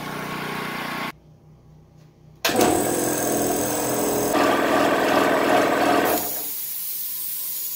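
Twin-cylinder air compressor pump running rough, a loud rhythmic mechanical clatter that cuts in and out abruptly, followed by a steady hiss near the end. The owner puts the rough running down to a control left pulled out instead of pushed in.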